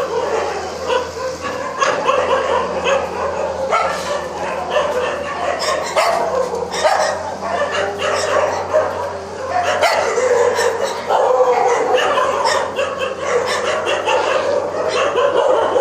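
A group of rescued stray dogs barking over one another, a dense chorus of overlapping barks with no break.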